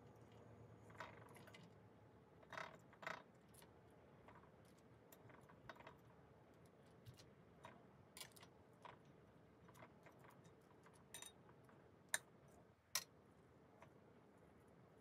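Near silence broken by faint, scattered clicks and taps of metal kitchen tongs picking up pieces of crispy fried chicken and setting them on a plate, with a few sharper clicks near the end.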